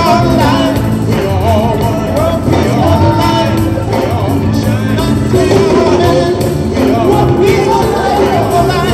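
Live band music with several singers on stage, voices singing together into microphones over a steady bass line.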